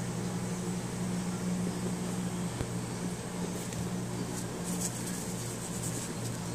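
A steady low machine hum, like a fan or air conditioner, with a few faint soft scratches about halfway through.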